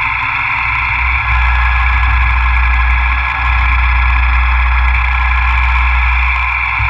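Milling machine running a cut, with a steady whine from the spindle and a low rumble. The rumble rises about a second in, dips briefly, and falls back near the end.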